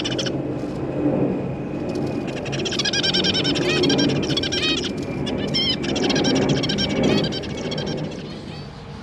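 Zebra finches calling: bursts of rapid, repeated short notes, busiest in the middle, over low background noise that fades near the end.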